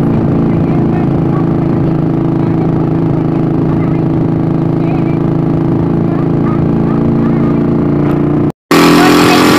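Motorcycle engine of a passenger tricycle running steadily and noisily, heard from inside the sidecar. Just before the end it drops out for an instant and comes back louder.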